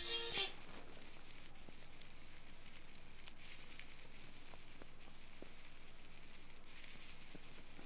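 Soft scratches and a few small clicks from a thin wire ear pick working inside an ear canal, over a steady faint hiss.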